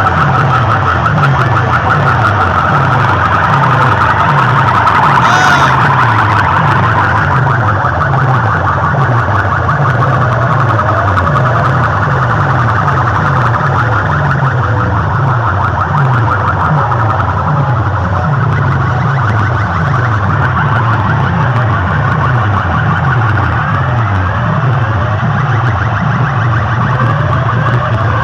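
Massed horn loudspeakers of a sound-box rig blasting a loud electronic track: a sweeping, siren-like wail over a fast repeating bass beat, pushed to distortion.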